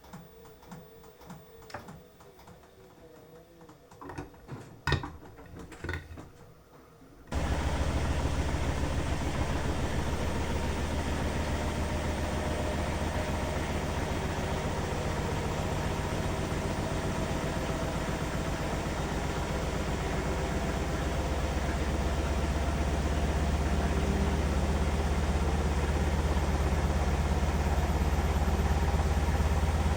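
Beko washing machine: soft ticking and a couple of knocks, then about seven seconds in a loud, steady motor run with a deep hum starts suddenly and builds slightly toward the end. This is the drum going into its spin near the end of a 30° wash set to 800 rpm.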